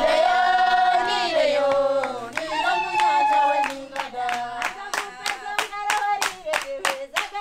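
A group of voices singing without instruments, holding long notes, with steady rhythmic hand clapping joining about four seconds in.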